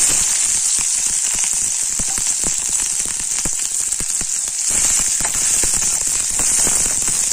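Sliced onions sizzling loudly in hot oil in a steel kadai, the hiss jumping up at once as they are tipped in. Scattered crackles and clicks, with a steel ladle scraping as the onions are stirred.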